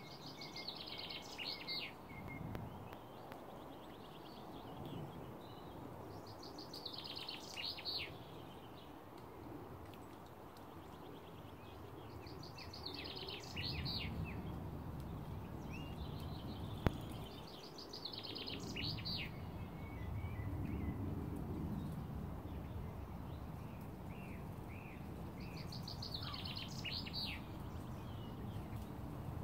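A small songbird sings a short, fast trilled phrase five times, about every five or six seconds, over a low background rumble that gets louder from about halfway through.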